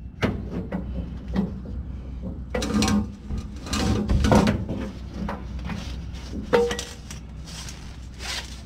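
Irregular metallic scraping, rattling and knocks from the old exhaust muffler and pipe being shifted and a ratchet tie-down strap being handled, with a sharp knock a little past halfway.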